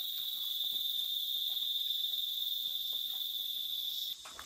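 Steady, high-pitched chorus of insects, likely crickets, that cuts off suddenly near the end.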